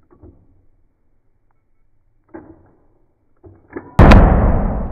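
A single shot from a Model 1917 'Enfield' rifle in .30-06, a sharp, very loud crack about four seconds in that rings off in a long echoing decay. A few faint clicks come before it.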